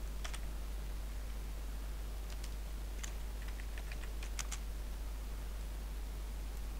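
Computer keyboard typing: a few scattered keystrokes, bunched together about three to four and a half seconds in, over a steady low electrical hum and hiss.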